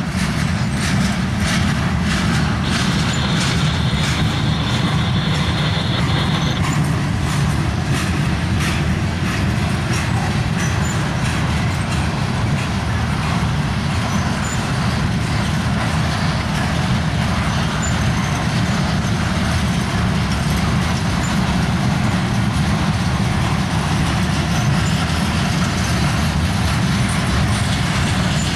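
Slow-moving freight cars loaded with slab steel rolling past: a steady low rumble of steel wheels on the rails. A thin, steady high-pitched whine rings out for a few seconds about three seconds in.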